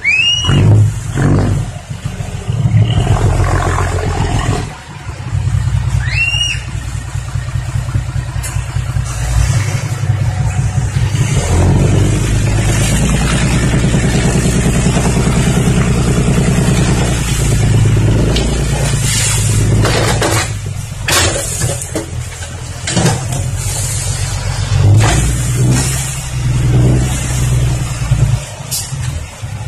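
Six-wheel dump truck's diesel engine running as it reverses and tips its bed, with soil sliding and rattling out of the body near the end. Two short rising whistles sound about half a second and six seconds in.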